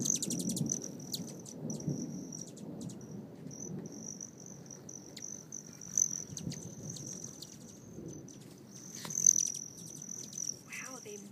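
Hummingbirds flying around a feeder: a low hum of wingbeats, strongest at the start, under a high, steady trill. Quick high ticking chips come in the first few seconds, with sharper passes at about six and nine seconds.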